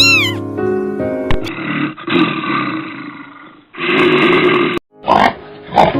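Big cat roaring: two long, rough roars followed by two short grunting calls, over steady background music. A domestic cat's meow ends just at the start.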